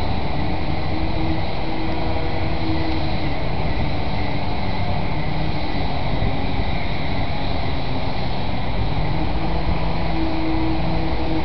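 Steady outdoor city background: a continuous low rumble with faint hums that come and go, and no distinct events.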